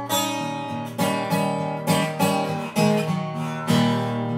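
Acoustic guitar playing a blues accompaniment between sung lines, chords struck about once or twice a second.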